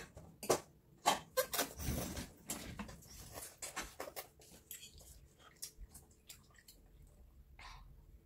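Spoons and chopsticks clicking and knocking against bowls and a pan while noodles are eaten. The clicks come thick for the first half and thin out after about halfway.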